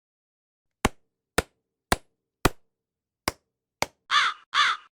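Six sharp knocks, roughly half a second apart, then two harsh crow caws near the end.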